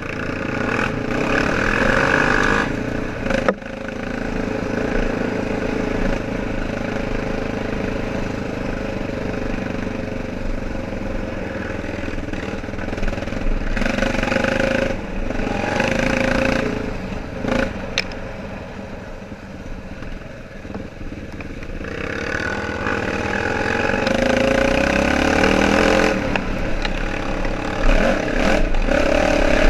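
ATV engine running under load on a muddy trail, easing off for a few seconds past the middle, then revving up with a rising pitch. A couple of sharp knocks are heard along the way.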